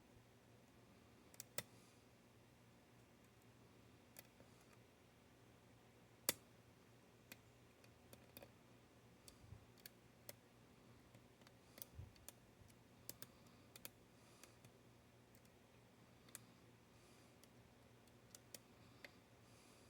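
Faint, irregular clicks of a hook pick and tension tool working the pins of a Paclock 90A-Pro padlock, scattered unevenly with a louder click about six seconds in.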